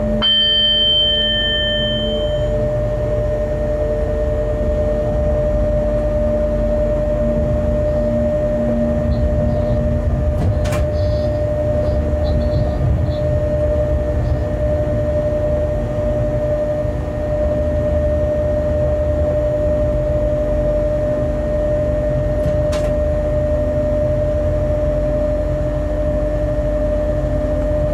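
Freight train locomotive cab while running: steady low rumble from the moving train with a constant hum from the locomotive's equipment. A short high-pitched beep sounds about a second in, and there are two brief clicks, at around 11 and 23 seconds.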